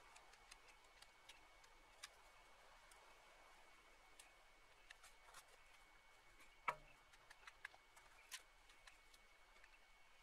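Faint, scattered snaps and cracks of dry brush twigs as a pile of dead branches is pulled apart by hand. The sharpest crack comes about two-thirds of the way through, with another soon after.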